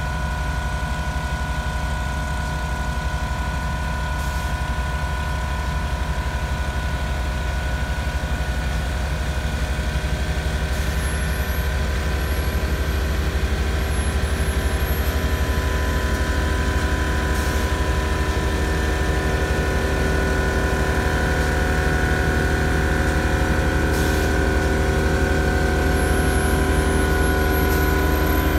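Steady drone of the engine-driven epoxy application rig on a dump truck's trailer: a low rumble with a constant whine of several steady tones, getting slightly louder near the end.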